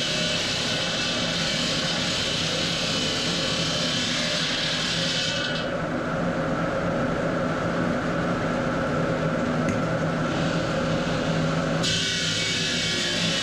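Marble-cutting machinery running steadily: a low hum under a high hiss that drops away about five seconds in and comes back near the end.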